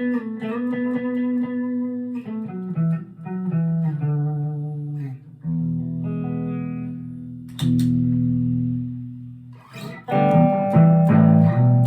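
Chapman ML3 Pro Modern electric guitar played with its volume knob full up. Quick picked notes and runs come first, then held chords that ring out about five and a half and seven and a half seconds in, then louder strummed chords near the end.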